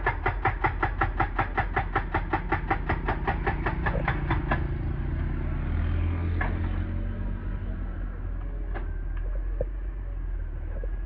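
Excavator's hydraulic rock breaker hammering on stone in a fast, even run of about five blows a second, stopping about halfway through. The diesel engine keeps running with a low rumble, swelling slightly afterwards.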